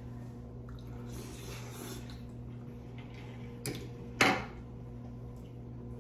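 Metal fork knocking against a glass baking dish while eating: a light tap, then one sharp clink with a short ring about four seconds in, over a steady low hum.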